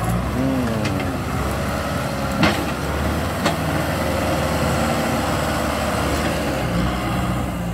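Kubota M6040SU tractor's four-cylinder, 60 hp diesel engine running steadily under load as it pushes soil with its blade. Two sharp clanks about a second apart near the middle.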